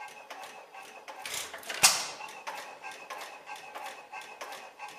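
6 HP Seager Olds Type A stationary flywheel engine running on its first run: a steady clicking about four times a second as the flywheel turns, with one loud firing bang just under two seconds in.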